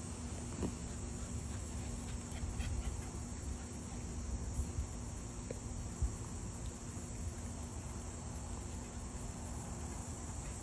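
Steady, high-pitched drone of insects, with a low steady hum beneath it and a few faint soft knocks.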